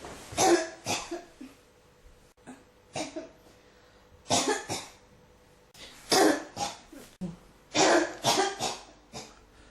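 A person coughing repeatedly, in about five bunches of one to three sharp coughs with short pauses between them.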